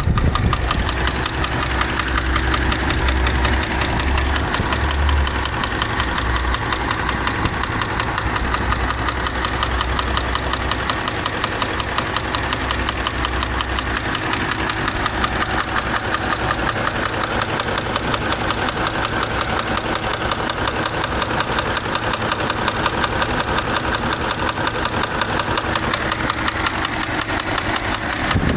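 Subaru engine idling with a rapid, regular knock, the engine knock over which the owner is weighing repair against a replacement engine. A deeper low rumble under it eases off about a third of the way in.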